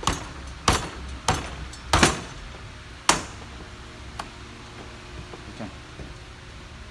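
A series of sharp metallic knocks, about five in the first three seconds and then a few fainter ones, like a hammer tapping on the drive shaft or bearing while the main drive shaft bearing is being replaced.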